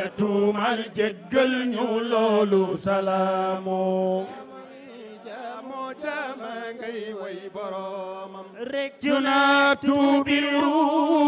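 Islamic devotional chanting: a sung religious poem in long, drawn-out notes that slide between pitches, softer through the middle and louder again from about nine seconds in.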